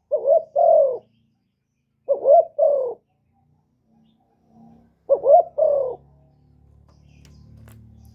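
Spotted dove cooing: three short phrases, each a quick rising note then a longer falling coo, about two and a half seconds apart. After the last phrase only a faint low hum and a few light clicks remain.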